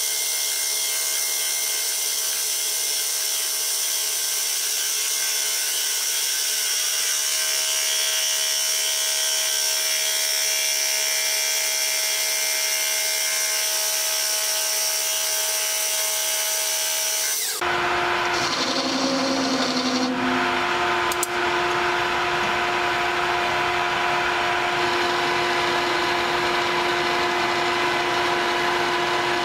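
Metal lathe running and turning down a metal shaft with a cutting tool: a steady machine whine with the hiss of cutting. A little over halfway through the sound changes abruptly to a lower, fuller steady hum with a strong single tone.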